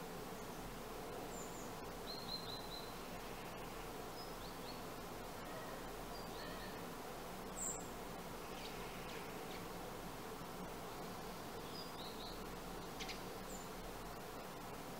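Sparrows chirping: short, scattered high chirps, the loudest a little past halfway, over a steady hiss and low hum.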